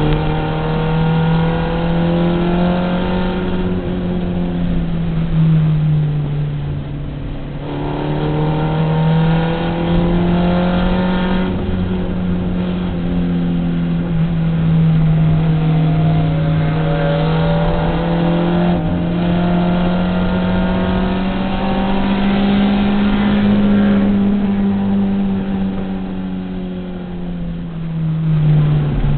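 Race car engine heard from inside the cabin, running hard at high revs on track: one continuous note that swells and eases with throttle through the corners, dropping in pitch at about 6 seconds and again near the end.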